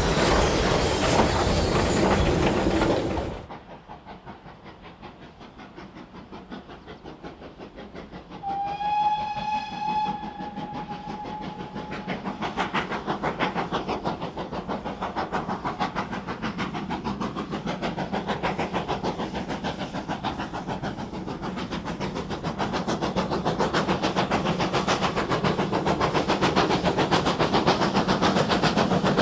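A steam locomotive running loud, then an abrupt cut to a quieter scene. A steam whistle gives one long blast of about three seconds, rising slightly at its start. It is followed by the rhythmic beats of a steam train that grow steadily louder as it approaches.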